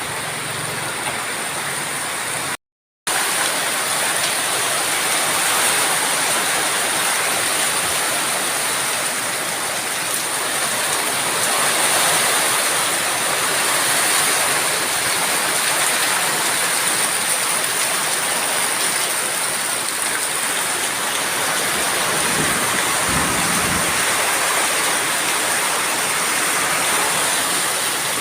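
Steady rain falling, a dense even hiss. The sound drops out completely for a moment about three seconds in.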